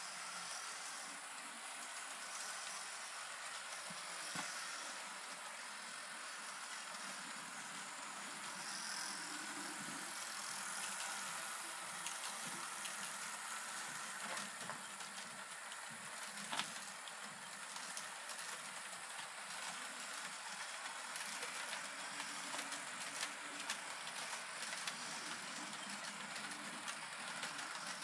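HO scale model freight train running on the track: a steady whir of the locomotive motors and rolling cars, with light clicks and rattles from the wheels, more frequent in the second half.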